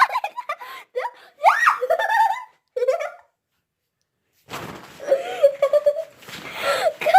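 A girl's voice laughing and squealing without words, cut by a second of dead silence about three seconds in, then more laughter over rustling.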